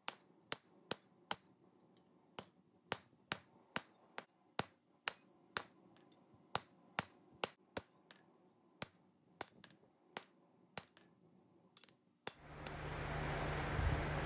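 Hammer blows on a red-hot steel crowbar on an anvil, about two a second, each strike ringing briefly, with a couple of short pauses. About twelve seconds in the hammering stops and a steady hiss with a low hum takes over.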